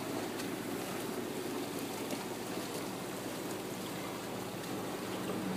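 Motorboat under way: water rushing and splashing steadily along the hull over the low, steady hum of the motor.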